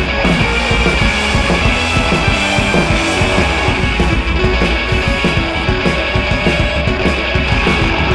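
Background rock music with electric guitar and a driving beat.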